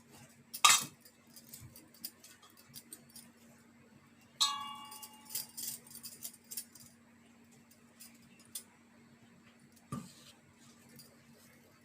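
Metal idli tray clinking and clattering as dough patties are set into its moulds: a sharp clatter about a second in, a ringing metal clink midway, light taps after it, and a dull knock near the end.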